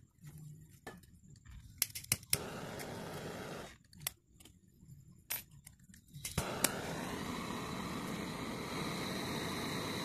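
Portable butane gas torch being lit: several sharp clicks, a hiss of gas for about a second and a half, more clicks, then about six and a half seconds in the torch catches and burns with a steady hiss.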